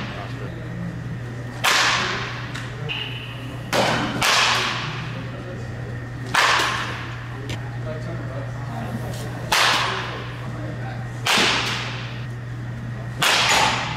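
A baseball bat striking balls in an indoor batting cage: a sharp crack roughly every two seconds, six or seven in all, each with a short ringing tail. A steady low hum runs underneath.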